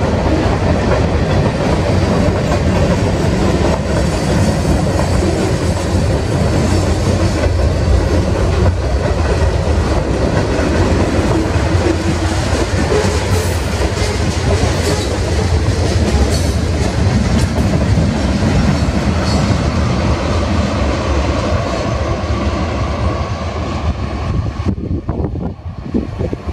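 Freight train of covered hoppers and tank cars rolling past, wheels clicking over the rail joints under a steady rumble. The sound falls away near the end as the last cars move off down the track.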